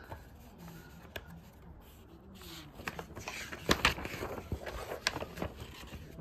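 Handling of a vinyl album jacket and its paper insert: quiet at first, then from about halfway a run of paper rustles and sharp light taps and clicks.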